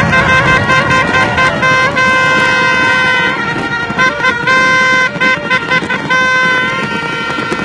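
Several horns sounding long, held notes together, over the dense crackling and popping of a fireworks display.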